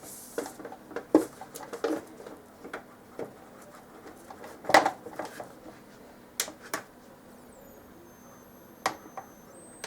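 Clicks and knocks of the Samsung SyncMaster 2043BF monitor being handled and switched on, then from about eight seconds in a thin high-pitched whistle from the monitor: one tone glides down and holds, and another steady tone starts near the end. This whistle is the monitor's fault symptom, which goes with its failing to switch on reliably.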